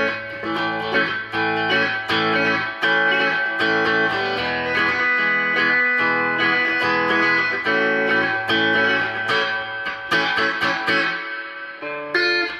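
Fujigen J-Standard Mustang electric guitar played through an amp: picked chords and held notes, with a short pause near the end before a new chord. Both single-coil pickups are on, with the slide switches set one up and one down.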